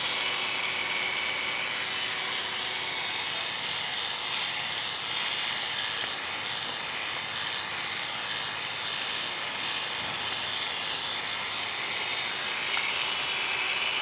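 Oster A-5 electric dog clippers running steadily with a high buzzing hum while they trim fur on a Brittany's head.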